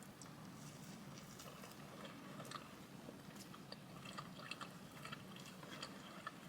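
Faint, scattered wet clicks and smacks of someone chewing a waffle with the mouth close to the microphone, over a low steady hum.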